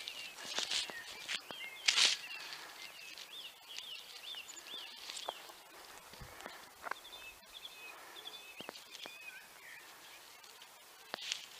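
Small birds chirping and calling with many short, repeated chirps, over scattered footsteps on a concrete path. A loud brief brushing scuff comes about two seconds in.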